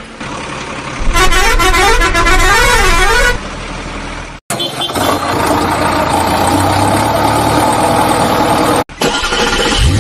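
Vehicle sound effects: a horn-like tone warbling up and down about twice a second for about two seconds, then a loud steady vehicle running noise.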